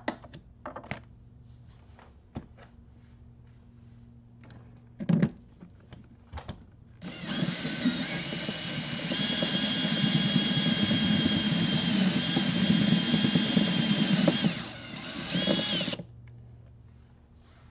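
A few clicks and handling knocks, then a DeWalt cordless drill runs for about nine seconds, boring a hole through a motorcycle saddlebag. The motor holds a steady whine, drops off briefly, gives a short second burst and stops.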